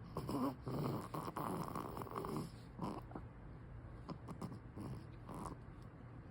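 A sleeping baby snoring, with irregular rattly breaths through the nose and throat, louder in the first half.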